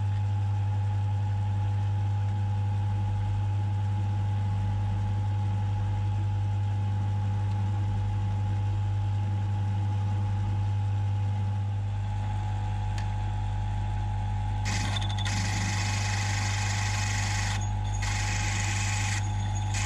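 Mill drill running with a steady motor hum while cutting into a casting. About fifteen seconds in, a loud hissing, scraping cutting noise joins the hum, with short breaks, as a twist drill bores the 5/16 in hole through the casting.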